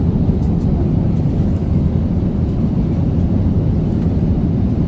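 Steady low drone of an airliner cabin in flight.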